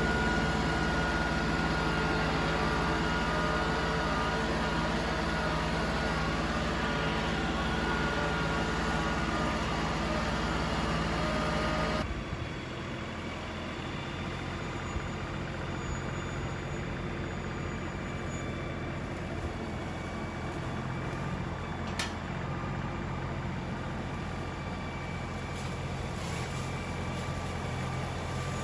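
LS XR3135 compact tractor's diesel engine running steadily, close up for about the first twelve seconds, then quieter and farther off. A single sharp click comes about two-thirds of the way through.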